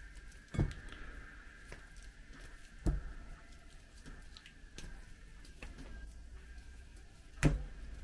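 Hands breaking a block of packet jelly into cubes: light clicks and three dull knocks, the loudest near the end, over a faint steady high hum.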